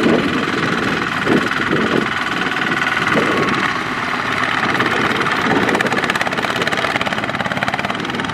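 Single-cylinder diesel engine of a two-wheel walking tractor running steadily with a fast, even knock while it pulls a trailer loaded with rice sacks.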